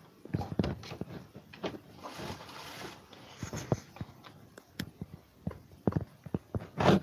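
Irregular taps, knocks and rustling close to the microphone: handling noise from the recording device being moved about.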